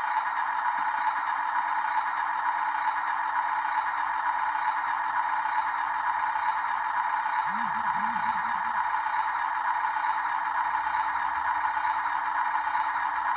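Steady mechanical whirring and rattling from remote-controlled toy construction trucks, their small electric motors and gearboxes running continuously.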